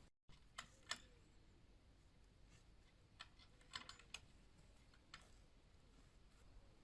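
Near silence with a few faint, irregular clicks and ticks.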